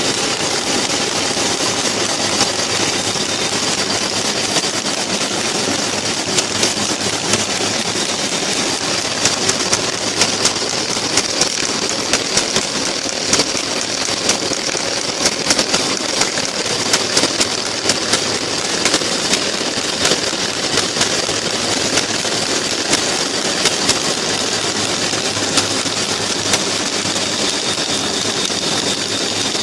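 Paper buckle-folding machine running steadily, with a continuous mechanical whir and frequent sharp, irregular clicks.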